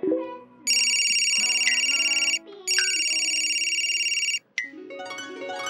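Cartoon mobile phone ringing with an electronic ring: two long, loud rings with a short gap between them, over light plucked background music.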